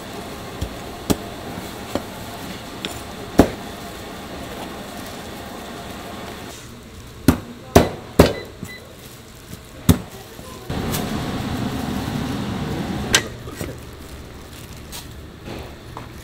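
Cleaver chopping through braised pig's trotters on a cutting board: sharp knocks at irregular intervals, with a quick cluster of the heaviest blows about halfway through. A few seconds of louder steady noise follow in the second half.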